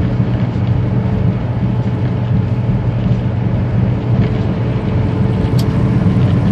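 Semi-truck diesel engine drone and road noise heard inside the cab while driving at speed, a steady low hum with rushing noise. There is one brief click about five and a half seconds in.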